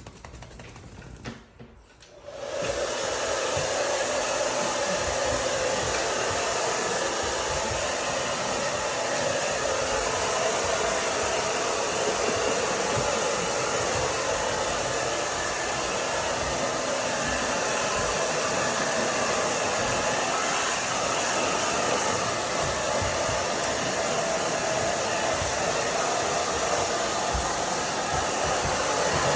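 Handheld hair dryer switched on about two seconds in, then blowing at a steady pitch.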